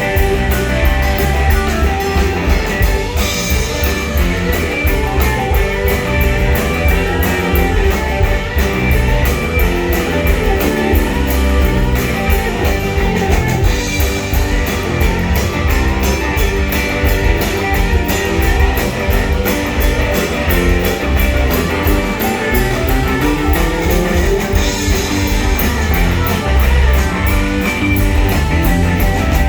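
Live rock band playing an instrumental passage: electric guitars over bass guitar and drum kit, with a steady cymbal beat.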